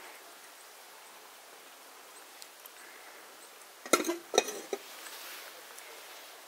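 A quick run of sharp clinks and knocks about four seconds in, as a frying pan on a metal stand and a porcelain cup are handled, over a quiet outdoor background.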